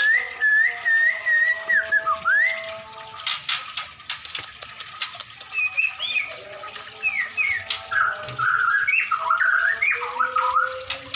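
White-rumped shama (murai batu) in full song: a string of varied whistled phrases that glide up and down, mixed with sharp clicking notes in the first few seconds and a short pause midway.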